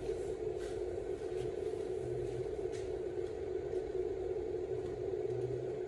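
A steady mechanical hum with a few faint, short scrapes of snow shovels on packed snow.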